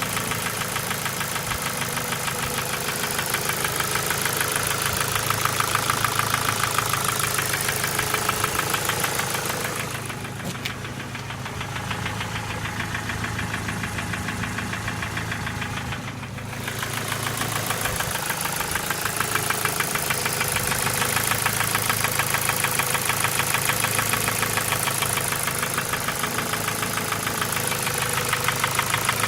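Ford Focus 2's 1.6-litre 100 hp petrol four-cylinder engine running with a rapid, even metallic knocking. The owner takes the knock for worn piston pins, in an engine that otherwise starts well and doesn't burn oil. For several seconds around the middle the sound goes quieter and duller, then comes back.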